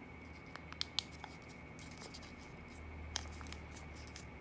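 Paper dollar bill being pushed and pressed into its folds by hand: faint rustling with a few sharp little ticks of the creases, three about a second in and one louder one near the end of the third second.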